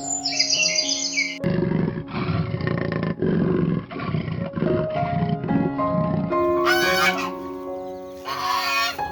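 A large animal growling and roaring in a series of deep pulses over background music, after a few bird chirps at the start. Near the end come two loud, shrill calls, likely a chicken's.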